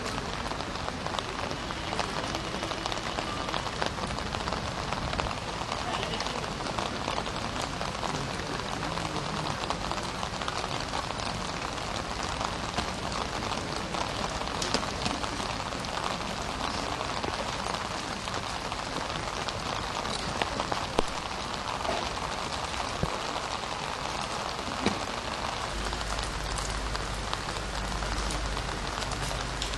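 A steady crackling hiss with many fine ticks, with a couple of sharper clicks about two-thirds of the way through.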